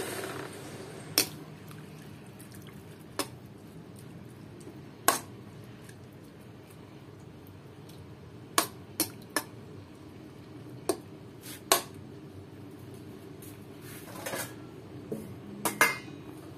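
Metal spatula clinking and scraping against an aluminium wok while stirring chunks of pork belly, about ten sharp clinks spread out irregularly, a few coming in quick succession.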